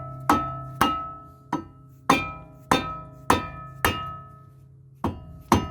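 Hammer striking the old front brake rotor of a 2008 Toyota Prius about nine times, roughly twice a second with a short pause near the end, the cast-iron rotor ringing after each blow. He is knocking it loose from the hub.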